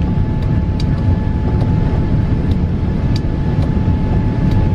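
Airbus A380 cabin noise in the climb just after takeoff: a steady, loud roar of the engines and airflow, deepest in the low end, with a faint steady whine and a few light ticks.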